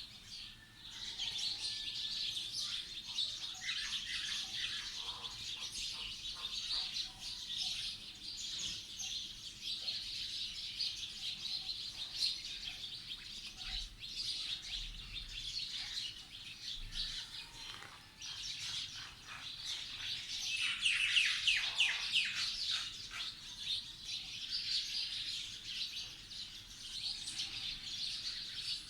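Many small birds chirping and tweeting at once, a steady chatter of short overlapping calls, with a louder run of rapid chirps about twenty seconds in.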